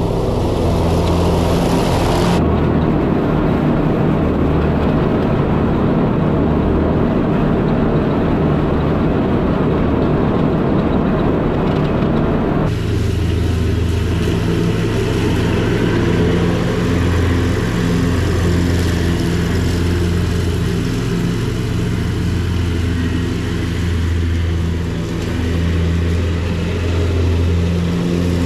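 Zero-turn riding mower engine running steadily under load while mowing grass. The sound's character changes abruptly twice, about two seconds in and about twelve seconds in.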